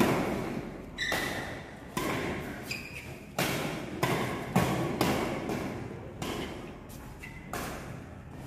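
Badminton rackets striking a shuttlecock back and forth in a quick rally, about nine sharp smacks roughly once a second, each echoing in a large hall, with a few short squeaks between hits.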